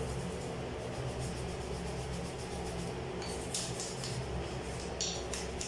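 Toothbrush bristles scrubbing a chrome sink faucet in rapid strokes, with a few louder scrapes in the second half, over a steady low hum.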